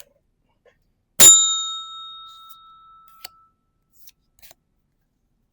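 A small bell struck once, ringing with a few clear tones that fade away over about two seconds. Faint clicks and taps follow.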